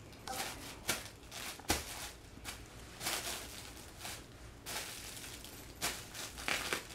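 Plastic bubble wrap crinkling and popping under a small child's bare feet: irregular, scattered sharp pops and crackles as he steps along it.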